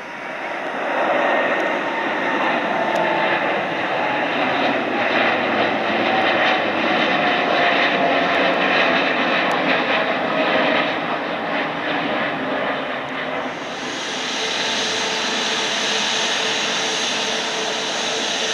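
Jet engines of a Boeing 787 climbing out after takeoff, with an engine tone that falls slowly as the aircraft passes. About fourteen seconds in the sound changes to the steadier engine whine of an Airbus A350 taxiing.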